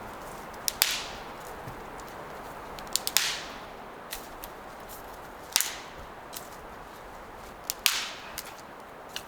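Dry dead firewood being broken up for a campfire: four sharp, loud cracks roughly every two and a half seconds, with smaller clicks and snaps between them.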